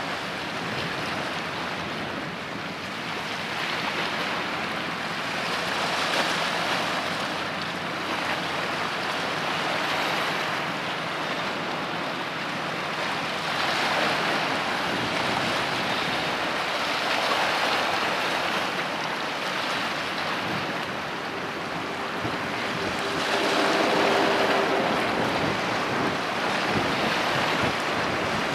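Sea waves washing and splashing, swelling and fading every few seconds, with wind noise on the microphone.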